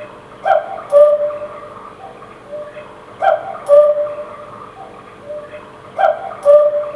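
Quartz cuckoo clock calling its cuckoo three times, each call a short higher note falling to a longer lower one, followed by fainter repeats as its built-in echo.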